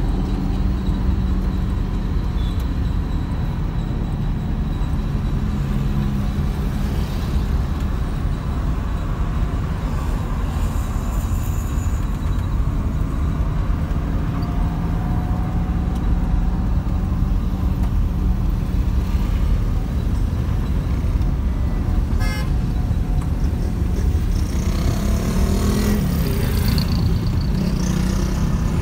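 Road and engine noise heard inside a moving car's cabin in traffic: a steady low rumble.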